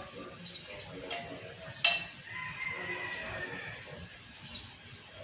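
Liquid poured from a bottle into a steel wok on the stove, with a sharp clink of glass on metal just before two seconds in.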